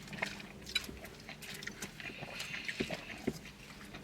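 Close-miked chewing and mouth sounds of a person eating a taco, with scattered small clicks and smacks.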